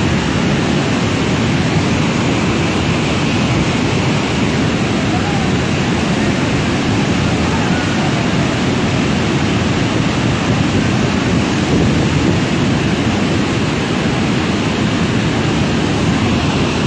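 Muddy floodwater of a river in spate rushing past in a steady, loud, unbroken roar of water.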